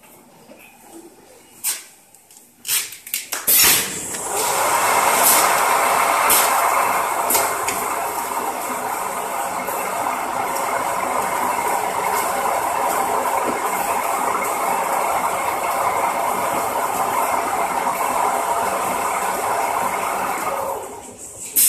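A few clicks as a bicycle tyre is set in a ring-type stretch wrapping machine, then the machine starts about three and a half seconds in and runs with a loud, steady mechanical noise as its film ring circles through the turning tyre, wrapping it in stretch film. It stops shortly before the end, followed by a click.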